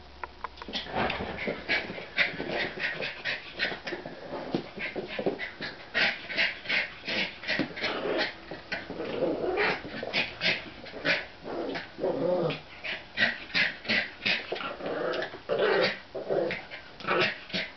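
Two American Eskimo dogs playing rough with each other: play growls and whines over a fast, busy run of short scuffling clicks.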